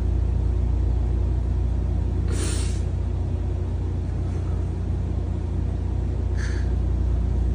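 A man sniffing back tears, once about two seconds in and more faintly near the end, over a steady low hum.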